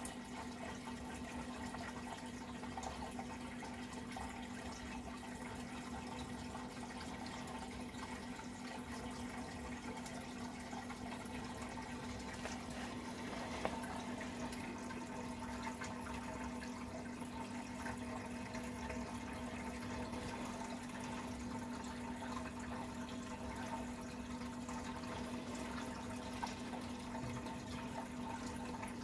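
Reef aquarium water circulating: a steady trickling, splashing wash of moving water with a steady low hum beneath it, and one brief tap about halfway through.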